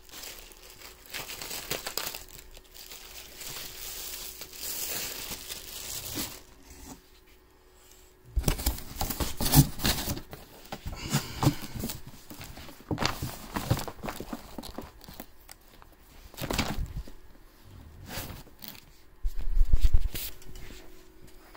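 Clear plastic wrapping crinkling and tearing as a board game play mat is unwrapped by hand, close to the microphone, with irregular rustles and knocks of handling. The sound pauses briefly about a third of the way in, then picks up again, loudest in a couple of short flurries.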